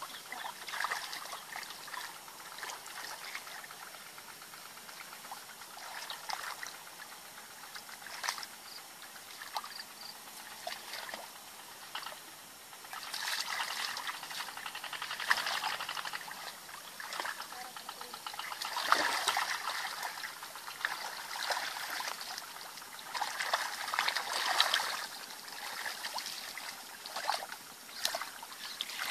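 Hands splashing and sloshing in shallow muddy water while groping in the mud for fish, in irregular bursts of splashing and trickling that grow busier and louder after about halfway.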